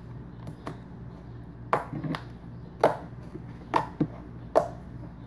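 Sticky white slime mixed with shaving cream, squished and poked by hand, giving sharp pops and clicks as air pockets in it burst. The pops are small at first, then louder ones come about once a second from near two seconds in.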